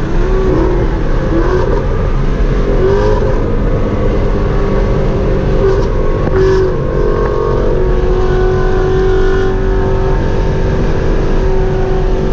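Inside a naturally aspirated car with a 10R80 ten-speed automatic at highway speed: engine and road noise. The engine's pitch rises and falls three times in the first few seconds, then holds a steady drone.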